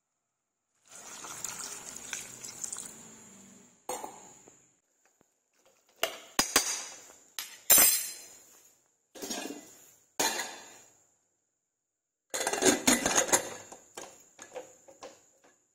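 A metal spoon stirs and scrapes chopped vegetables in a stainless steel pressure cooker, with sharp clinks of metal on metal against the pot. Near the end comes a dense run of clattering metal strikes as the pressure cooker lid is put on.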